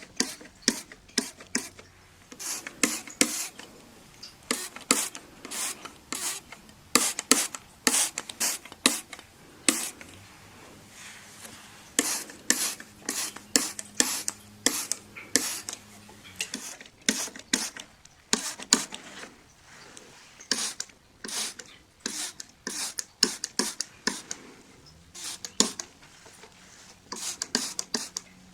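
A window being cleaned by hand: a long run of short, sharp rubbing and wiping strokes on the glass, irregular, about one to three a second.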